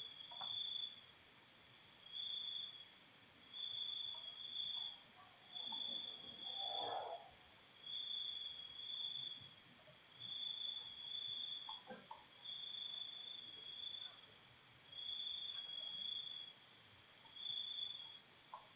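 Faint background insects trilling in regular pulses, about one a second, over a steady high hiss, with a few faint short clicks.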